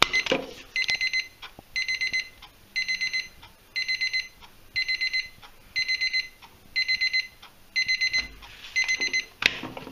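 Electronic alarm clock beeping in quick groups of four high beeps, one group about every second, nine groups in all.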